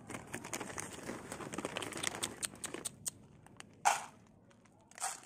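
Plastic cat-food bag crinkling and rustling as kittens nose into it and dry kibble is handled, a dense run of small crackles, then two short louder rustles near the end.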